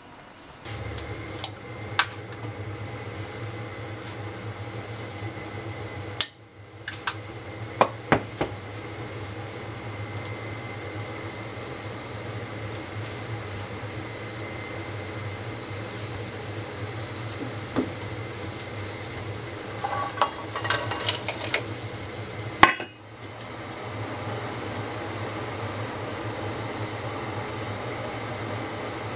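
Kitchen work at a stove: a steady low hum runs under scattered clinks and knocks of stainless steel pots, bowls and utensils. A quick run of clinks comes about twenty seconds in, and a sharp knock follows a couple of seconds later.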